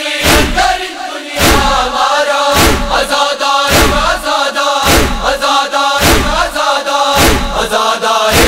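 A male chorus chanting a noha refrain in unison, over a heavy, regular beat of chest-beating (matam) a little slower than once a second.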